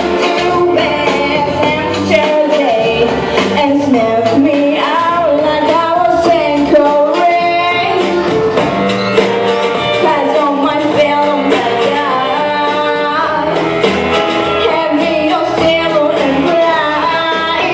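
A woman singing live into a microphone with instrumental accompaniment, her held notes wavering with vibrato.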